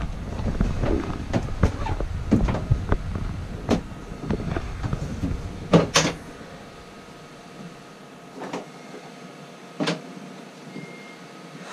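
Handling noise of a rubber garden hose being fed into a boat locker: a busy run of knocks, scrapes and rubs for about six seconds, then quieter, with a few single knocks.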